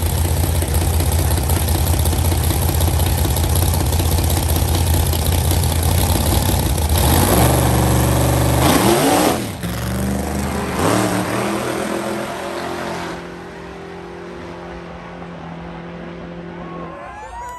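Vehicle engines running loud under throttle. About seven seconds in, the pitch climbs and shifts in steps, like gear changes, and then the sound fades to a quieter steady hum over the last few seconds.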